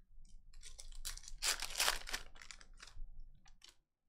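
The foil wrapper of a 2020 Panini Select Football hobby pack being torn open and crinkled by hand, a run of short rips and crinkles, loudest about halfway through.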